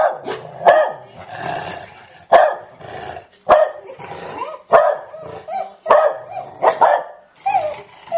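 A beagle barking over and over in alarm, sharp loud barks coming roughly once a second.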